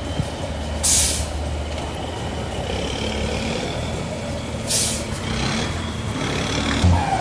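Volkswagen Constellation truck's diesel engine running, with two short, sharp bursts of compressed air hissing from the air brake system about four seconds apart.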